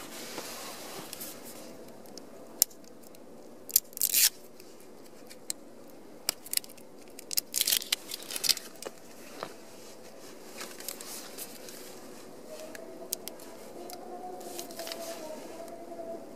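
Handling noises: a plastic bottle and a padded nylon jacket sleeve rustling and knocking, with scattered sharp clicks and short bursts of rustle, heaviest about four and eight seconds in. A faint wavering hum comes in over the last few seconds.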